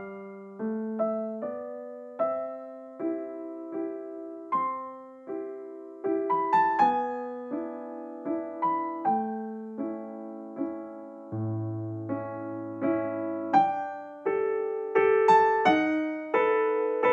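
Gentle background piano music: a slow melody of struck notes, about one or two a second, over held lower notes.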